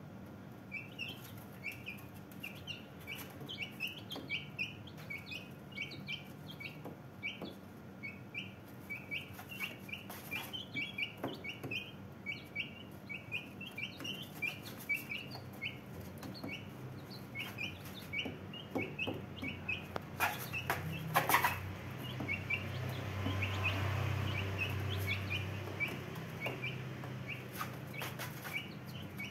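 Young Brahma chicks peeping continuously, short high calls several times a second. A few knocks come about twenty seconds in, and a low rumble swells in the background shortly after.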